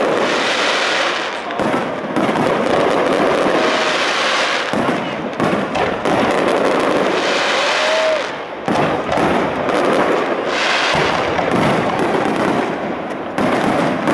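Aerial fireworks display: a dense, continuous barrage of shell bursts and crackling, the bangs running into one another with only short lulls.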